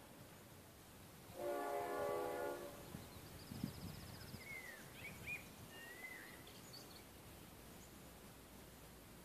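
Faint train horn giving one steady blast of a little over a second, about a second and a half in. Birds chirp and trill afterwards over a low outdoor hiss.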